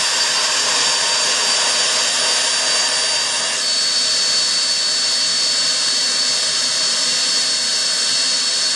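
Black Diamond Jetforce avalanche airbag's battery-powered electric fan running at a loud, steady high-pitched whine, deflating the airbag: the automatic deflation phase that starts about three minutes after deployment.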